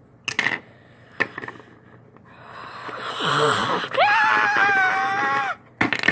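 A few light taps of plastic toys on a tabletop, then a person voicing a toy character: a breathy rising huff and a short low groan, then a loud, high-pitched wordless cry held steady for about a second and a half.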